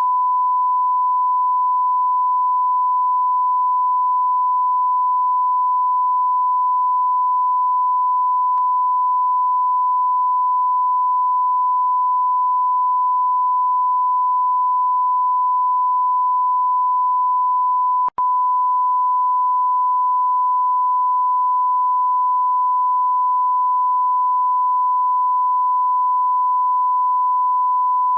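Continuous censor bleep: a single steady pure tone held at one pitch, with a momentary dropout about eighteen seconds in.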